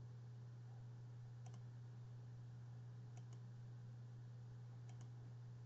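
Three faint computer mouse clicks, about a second and a half apart, over a steady low electrical hum.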